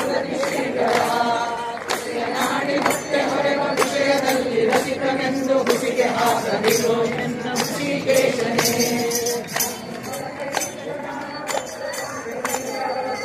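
A group of people singing a Kannada devotional song (bhajan), with jingling metal hand percussion struck on a steady beat.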